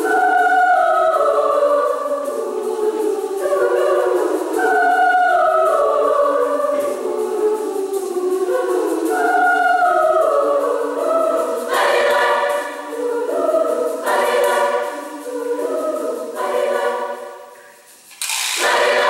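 Women's choir singing in high voices, moving in flowing phrases and then in sharply accented chords. It closes on a sudden loud final chord near the end.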